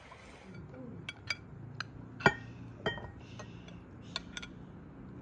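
Glassware and kitchen utensils clinking as a glass food-chopper bowl and dishes are handled on a table. About seven sharp clinks, the loudest a little over two seconds in.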